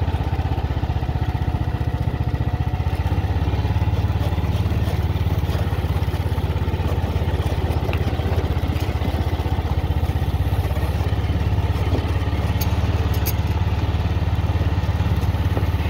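A small engine running steadily at a constant low speed, with an even low pulsing.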